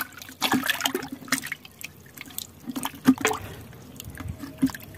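Water splashing and dripping in a plastic bucket as a hand rubs and swirls a raw mango to wash it, in irregular small splashes.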